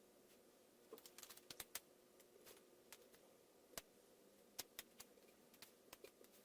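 Near silence with faint, scattered light clicks and taps as small plastic parts of a screen-protector installation kit are handled: a quick cluster about a second in, then single clicks every so often.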